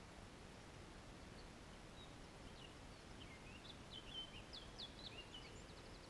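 Faint bird song: a quick run of high chirps and short whistled notes starting about a second and a half in, over an otherwise near-silent background.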